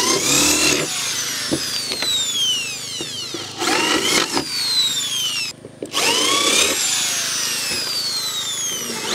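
Corded electric drill boring holes through a plywood sheet: three short bursts of the trigger, near the start, about three and a half seconds in and about six seconds in, each followed by the motor's whine falling in pitch as it spins down.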